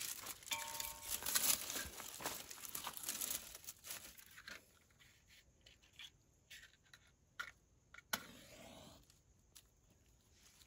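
Dry grass and twigs rustling and crackling as they are handled and packed under a cooking pot to start a wood fire. The rustling is dense in the first few seconds, then thins to scattered crackles. About eight seconds in there is a sharp strike followed by a hiss lasting about a second.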